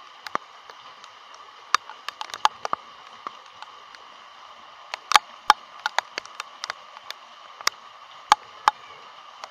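Steady rain hiss, with sharp irregular taps of drops striking close to the microphone, several louder ones in the second half.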